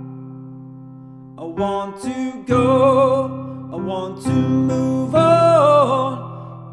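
Background music: a slow song with acoustic guitar and a singing voice. A held chord fades away over the first second and a half, then the guitar and voice come back in.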